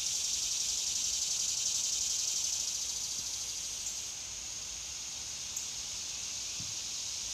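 Insects calling in a steady chorus, an even high buzz that eases slightly about halfway through.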